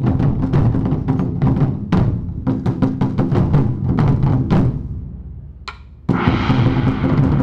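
Wadaiko ensemble of large taiko drums struck together in a fast, dense rhythm. About four and a half seconds in the strokes stop and the sound dies away, then the whole ensemble comes back in at full force just after six seconds.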